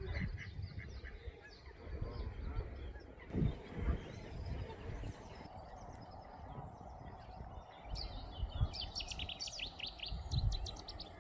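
Birds chirping, with a quick run of short high-pitched chirps in the last few seconds, over a low rumble.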